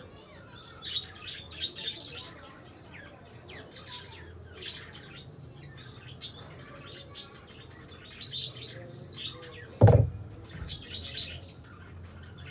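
Small birds chirping: short high chirps scattered through, with one loud thump about ten seconds in.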